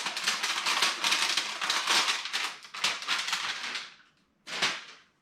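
Packaging crackling and rustling as a graphics card is taken out of it, a dense run of crinkling for about four seconds that dies away, then one short crinkle near the end.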